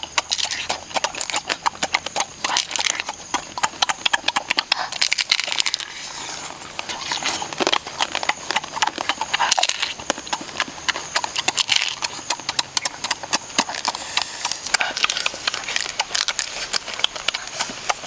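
People eating cooked crab: rapid wet lip-smacking and chewing, many clicks a second, with no break.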